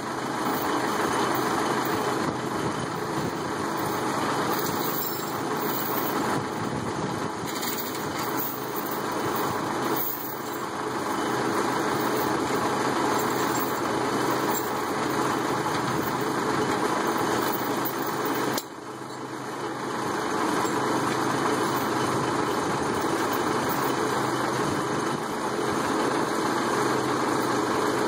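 The four-cylinder diesel engine of a 1971 Mercedes L508D tow truck idling steadily. Its level dips briefly about ten seconds in, then drops sharply about eighteen seconds in and climbs back over a couple of seconds.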